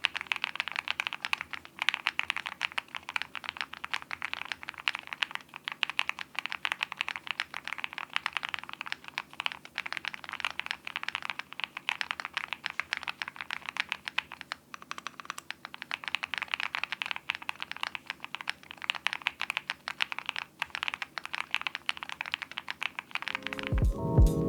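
Continuous, fast typing on a WindX R2 mechanical keyboard with KFA N2O switches, a polycarbonate plate, full foam and PBT keycaps, a dense run of key clacks. Music comes in near the end.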